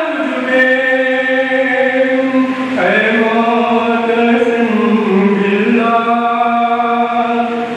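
A noha, a Shia lament, chanted by a man's voice in long held notes. The pitch drops about three seconds in and dips briefly again near the middle.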